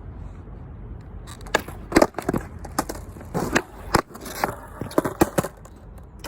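Skateboard being popped and landed during ollie attempts: a run of sharp clacks and knocks of the board's tail and wheels on concrete, starting about a second and a half in. The loudest hits come about two seconds and four seconds in.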